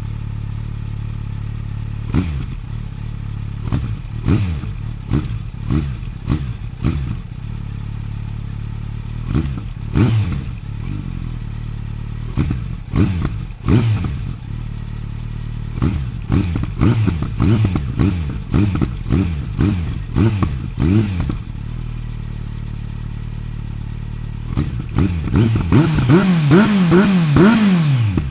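Kawasaki Z900's inline-four through a Bodis GPC RS2 aftermarket exhaust, idling and repeatedly blipped with short throttle stabs. Near the end it is held at higher revs for about three seconds before dropping back.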